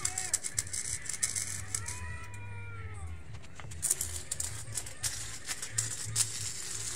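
Electric welding arc crackling and spitting over a low steady hum, the crackle densest in the second half. In the first three seconds, two drawn-out pitched calls that rise and fall, like a cat meowing.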